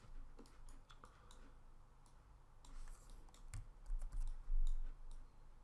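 Computer keyboard typing and mouse clicks, scattered and irregular, with a dull low thump about four and a half seconds in.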